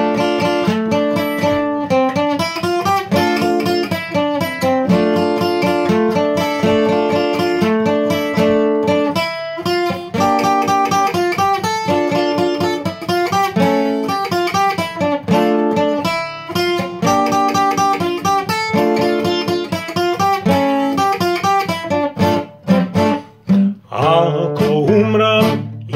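Acoustic guitar played solo in a steady rhythm, picked and strummed chords changing every second or so. Near the end a man's voice comes in singing over it.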